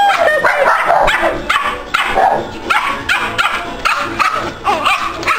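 Dogs barking and yipping in quick, repeated short calls, several a second.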